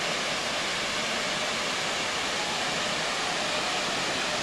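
Waterfall running: a steady, even rush of falling water.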